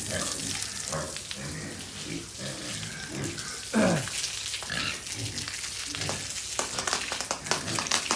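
Pigs grunting in short repeated calls, with one loud squeal falling in pitch about four seconds in, over a steady crackling noise.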